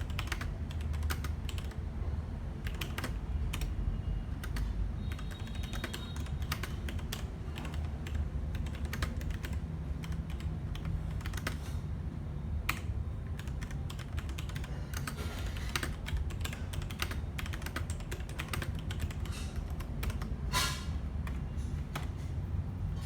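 Typing on a Logitech G Pro mechanical keyboard: a steady, uneven run of key clicks, with one louder key strike near the end.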